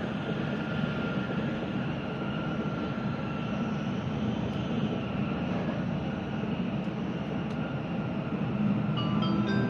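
Steady rumble and hiss of a Shinkansen train running at speed, heard from inside the passenger car. Near the end, the onboard chime starts, a run of bright bell-like notes that signals an approaching station announcement.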